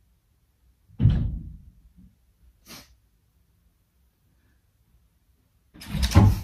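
A man fake-crying: loud sniffling, sobbing breaths about a second in and again near the end, with a short sharp sniff between.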